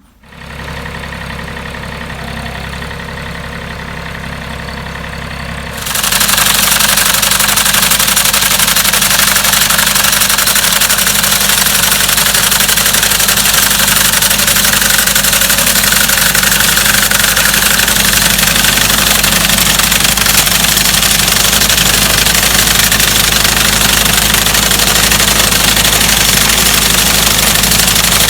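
Compact tractor's diesel engine running steadily. About six seconds in it gets much louder and stays loud and even.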